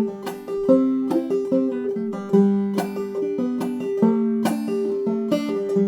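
Five-string banjo played clawhammer style: a steady rhythmic run of plucked notes, with a higher note sounding again and again over the changing melody notes.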